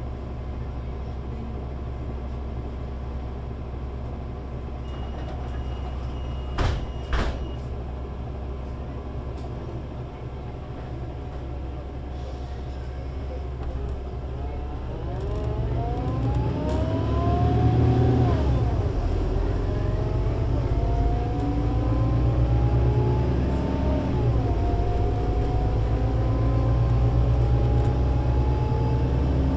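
Solaris Urbino 18 IV articulated bus, DAF diesel engine with Voith Diwa 6 automatic gearbox, idling steadily, with a short beep and two sharp knocks about seven seconds in. About halfway through, the bus pulls away and accelerates. The engine's pitch climbs, drops back at gear changes about 18 and 24 seconds in, and climbs again.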